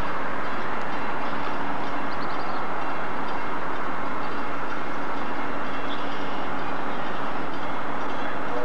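Steady engine and machinery noise of a Great Lakes freighter under way, an unbroken rumbling hiss with a faint steady hum.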